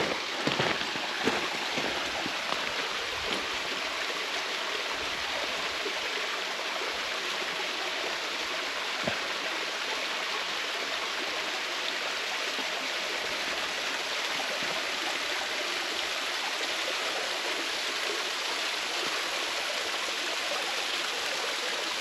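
Small waterfall splashing steadily into a creek pool, with a few light knocks in the first second or so.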